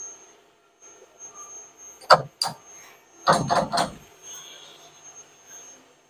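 Machine vises being tightened on an aluminium bar on a CNC mill: two sharp metal clicks about two seconds in, then a quick run of about four knocks. A faint steady high whine sits underneath.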